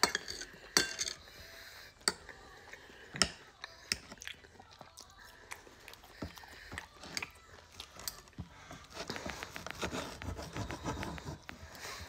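Steak knife and fork clinking and scraping on a dinner plate while cutting a T-bone steak, with chewing between the clinks. From about eight seconds in, a run of quick scraping strokes as the knife saws through the steak.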